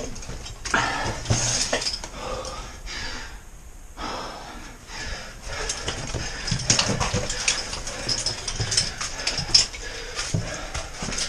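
Footsteps and scuffs of someone making their way through a rocky mine tunnel, with irregular knocks and clinks and the person's heavy breathing. The sounds ease off briefly a few seconds in.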